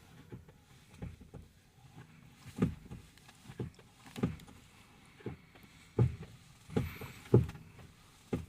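A string of short, dull knocks and clunks at irregular intervals, about one a second: metal parts and tools being handled during timing-chain work on a diesel engine.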